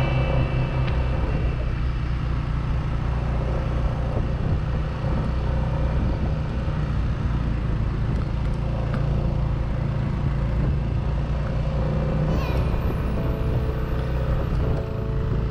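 Steady low rumble of wind and road noise while travelling along a road.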